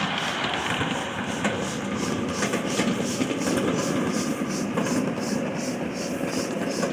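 Ridable-scale steam train rolling along the track, with a few sharp clicks from the wheels and rails and a hissing beat about twice a second.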